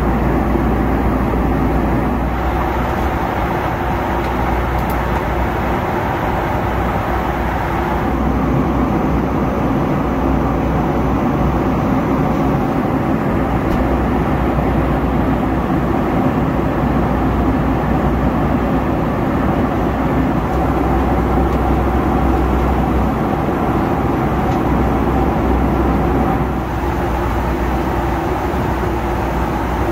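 Steady cabin noise of a Boeing 757 airliner in cruise: a constant rush of airflow over a low engine hum, its tone shifting slightly a few times.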